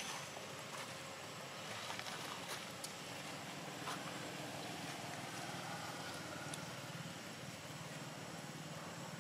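Steady outdoor background noise: a low, even hum and hiss with a few faint clicks and rustles.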